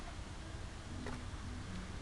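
Quiet outdoor background: a steady low rumble and hiss, with a faint tick and a couple of short faint tones about a second in.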